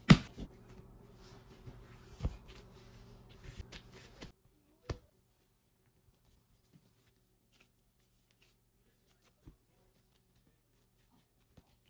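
Gloved hands kneading and shaping soft bread dough on a silicone mat: rustling and dull knocks as the dough is pressed and turned, loudest just after the start and again about two seconds in. After about four seconds the background noise drops out, and only a few faint taps are left as the dough is divided and rounded.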